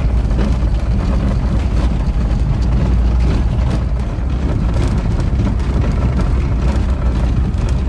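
Steady low rumble of a moving vehicle, road and engine noise.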